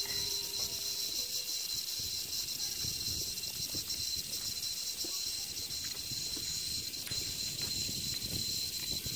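Steady high-pitched chorus of insects trilling in the surrounding tropical forest, with a low uneven rumble of wind on the microphone.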